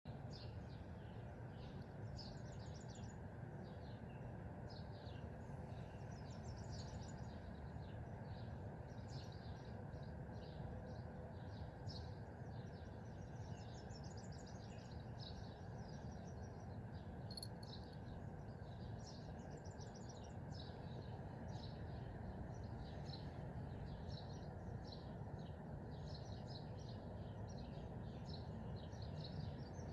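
Small birds chirping and trilling faintly outdoors in short, irregular bursts, over a steady low background rumble.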